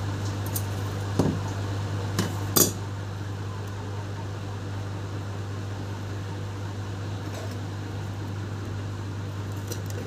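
Three light clicks and clinks of a small phone part and tools being handled on the repair bench, the loudest about two and a half seconds in, over a steady low electrical hum.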